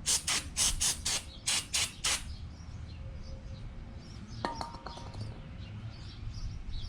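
Red Scotch-Brite pad scrubbing a hydraulic lifter part in quick back-and-forth strokes, about four a second, stopping a little over two seconds in to clean water stains off the metal. Then a small metal lifter part clinks once, with a short ring, about halfway through.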